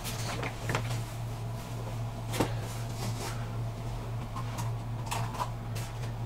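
Steady low hum with a few scattered light clicks and knocks, the sharpest about two and a half seconds in.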